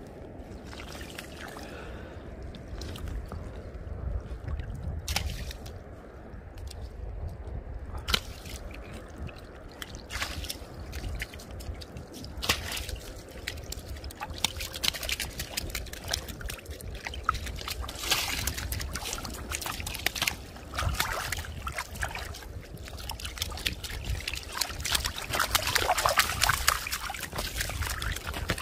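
Mandarin fish and other freshly caught fish flopping and splashing in shallow, slushy water among broken ice, with irregular wet slaps and sloshing that grow busier and louder in the second half, over a steady low rumble.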